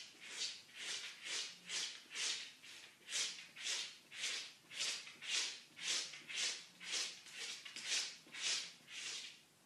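An unseen animal huffing or snorting in a steady rhythm, about two to three breathy huffs a second, starting suddenly.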